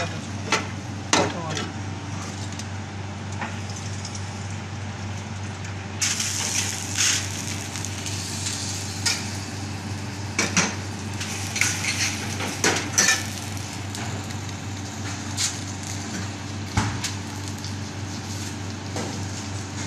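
Diced meat and peppers sizzling in a stainless steel sauté pan on a gas burner, with a metal spoon scraping and clanking against the pan and pans knocking on the range grate. The sizzling gets louder about six seconds in, over a steady low hum.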